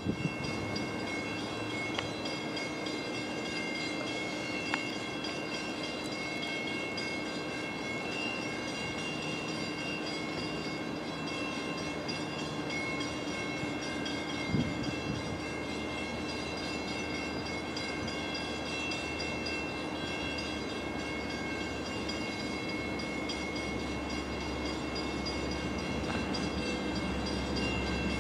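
Long Island Rail Road DE30AC diesel-electric locomotive approaching with its train, a steady distant running sound whose low rumble grows louder over the last few seconds as it nears. A steady high-pitched whine runs throughout, with a single short knock about halfway.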